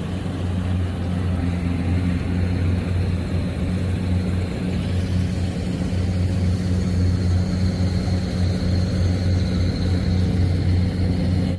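Rice combine harvester running steadily under load, a deep, even engine drone. A faint high whine comes in around the middle.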